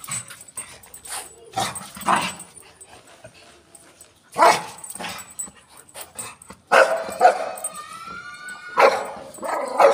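Dogs barking, single separate barks every second or two, with a drawn-out, wavering whine about three quarters of the way through.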